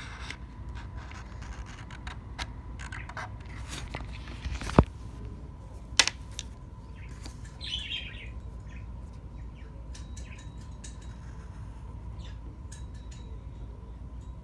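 Tabletop handling of a pen and a plastic lighter on paper: scattered light taps and scratches, two sharp clicks about five and six seconds in, and a brief squeak near eight seconds, over a faint steady high tone.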